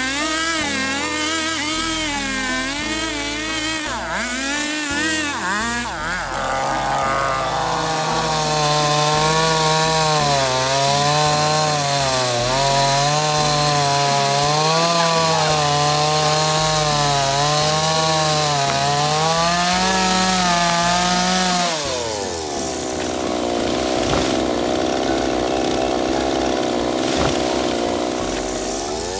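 Chainsaw running under load while cutting through a coconut palm trunk, its engine pitch wavering up and down as it bogs and recovers in the wood. About three-quarters of the way through the pitch drops and holds steadier, then climbs again near the end.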